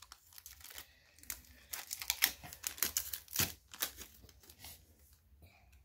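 Foil Pokémon trading-card booster pack wrapper crinkling and tearing as it is opened and handled by hand, a run of short crackles busiest in the middle and thinning out near the end.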